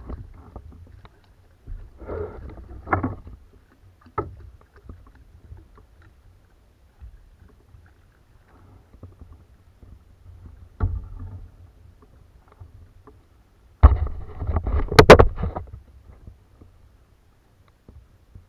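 Knocks and thumps on a plastic sit-on-top kayak's hull with low handling rumble, coming in scattered short bursts with quiet gaps. A hooked fish splashes at the surface at the very start. The loudest is a cluster of sharp knocks and clatter about fourteen to fifteen seconds in.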